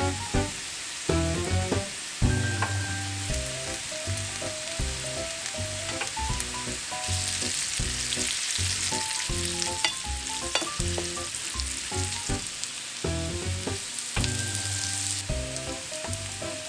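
Boiled potato chunks frying in a pan of hot oil, sizzling steadily, with scattered clicks of stirring. The sizzle grows louder about halfway through, then eases near the end. Light background music with a bouncy melody and bass plays along.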